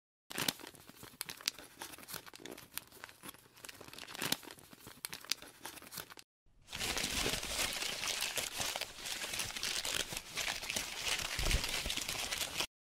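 Sheet of paper being crinkled and crumpled: sparse crackles for about six seconds, then after a short pause denser, louder crumpling that stops abruptly near the end.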